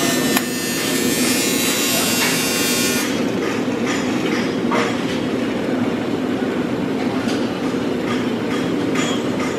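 TIG welding arc on steel tong handles, a steady buzz with a bright hiss on top. The hiss eases off about three seconds in while the buzz runs on.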